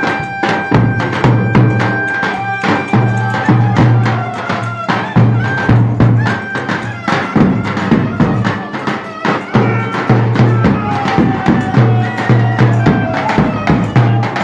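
Turkish folk dance music played by a band: fast, regular percussion under a pulsing bass note, with a melody line holding and sliding between notes.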